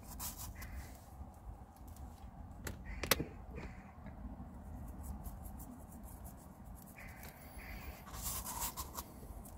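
Faint clicks and rustles of a small hand-held salt grinder being handled and twisted over food, with one sharper click about three seconds in.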